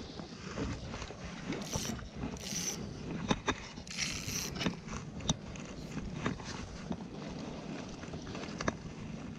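Spinning reel and tackle being worked: scattered sharp clicks with three short rasping bursts in the first half, over a steady bed of wind and water noise.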